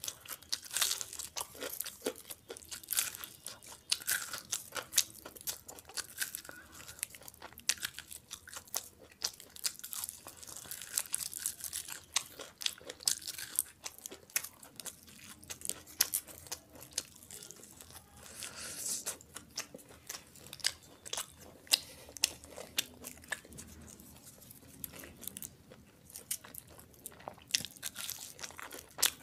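Chewing and biting into a fried chicken lollipop, with many sharp crunches coming thick and fast.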